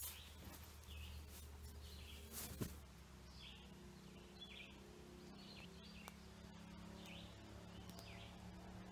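A bird chirping over and over in the woods, short calls about once a second, with a single sharp thump about two and a half seconds in as someone settles onto a sleeping pad.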